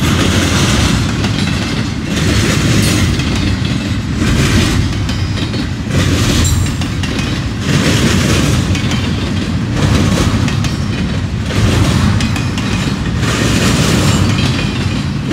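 Double-stack intermodal train's container well cars rolling past at close range: steady loud wheel-on-rail noise, with clickety-clack surging every second or two as each set of wheels passes.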